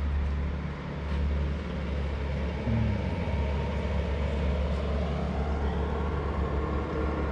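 Motor vehicle driving along: a steady low rumble of engine and road noise.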